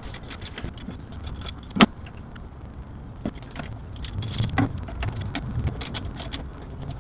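Socket wrench clicking and metal clinking in irregular ticks as the 10 mm bolts of a thermostat housing are tightened down, with one sharper knock a little under two seconds in.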